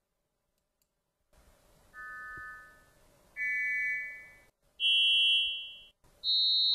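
Four electronic test chimes generated by a Blamey & Saunders hearing aid for loudness balancing. They play one after another about 1.4 s apart, starting about two seconds in, each higher in pitch than the last. Each is a steady ringing tone that fades away, and the first is noticeably softer than the other three.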